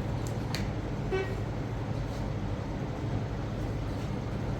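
A vehicle horn gives one short toot about a second in, over a steady low engine and traffic rumble.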